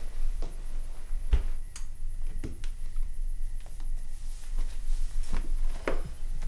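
A few scattered knocks and clicks, about seven over several seconds, over a steady low rumble.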